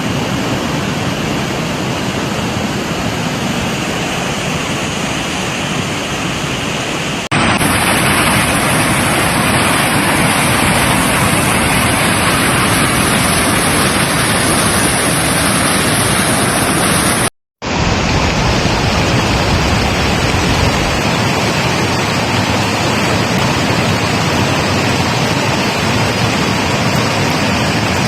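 Steady rushing noise of floodwater. It jumps louder and brighter about seven seconds in and cuts out for a moment about two-thirds through before going on.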